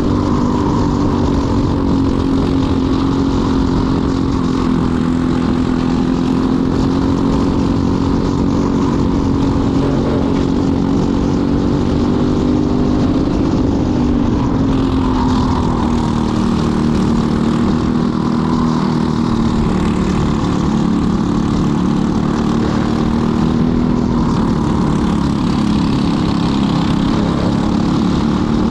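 Racing kart engine heard from the kart's own onboard camera, running at high revs through the heat, with wind noise on the microphone. Its pitch sags briefly about halfway through and again about two-thirds through, then climbs back.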